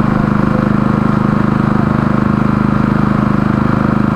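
An engine running steadily at a constant speed close to the microphone, with a fast, even pulse.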